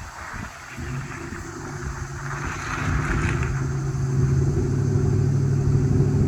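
Motor vehicle engine running and growing steadily louder, with a brief rush of hiss about halfway through.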